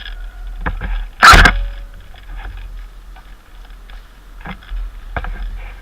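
A single loud, sharp bang just over a second in, with scattered fainter clicks and knocks around it.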